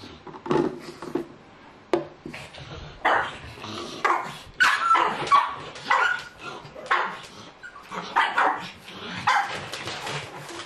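Pugs barking and yipping excitedly, about once a second, worked up by the smell of a beef dinner.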